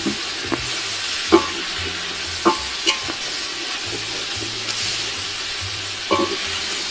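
Food sizzling steadily as it fries in a hot pot while it is stirred, with a cooking utensil knocking against the pot several times; the loudest knock comes about a second and a half in.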